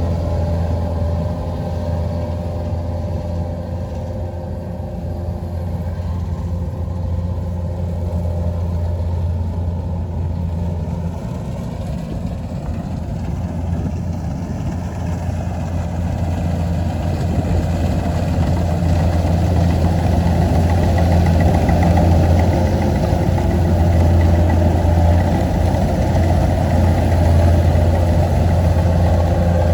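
Kubota DC-93 combine harvester's diesel engine running steadily with a deep hum while harvesting rice, growing louder over the second half.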